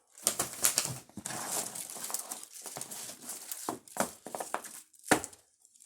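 Fireworks packaging being handled: rustling and crinkling of plastic and cardboard for a few seconds, then several separate light knocks.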